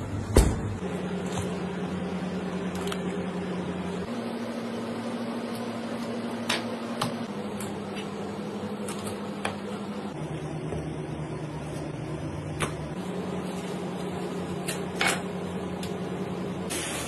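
Sharp taps and knocks of a knife against a cutting board while a gurnard is filleted. The loudest comes just under half a second in, with others around six and a half, twelve and a half and fifteen seconds. Under them runs a steady low drone that steps to a new pitch every few seconds.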